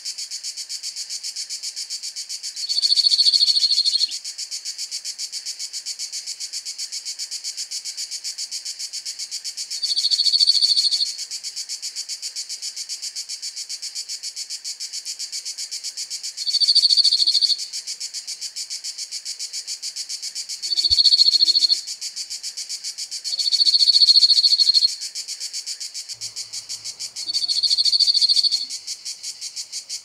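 Cicadas chorus steadily throughout, a dense pulsing high-pitched buzz. Over it, a cirl bunting sings its dry, even rattling trill six times, each about a second long and a few seconds apart.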